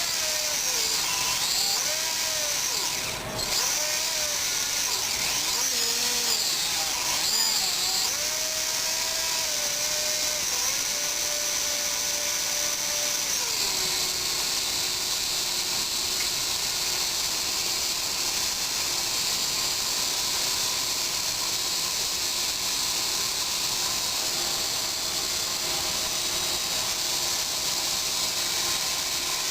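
Small electric motor spinning steadily with a high whine, its pitch shifting up and down for the first half, then settling to a constant speed about halfway through.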